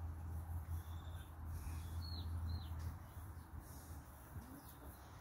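Two short, high bird chirps that drop in pitch, about two seconds in, over a steady low hum that fades out about three seconds in.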